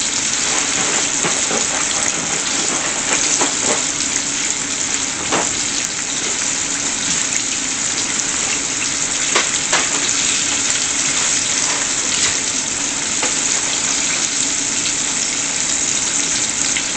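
Floured chicken pieces deep-frying in hot oil in a saucepan: a steady sizzle with scattered pops and crackles.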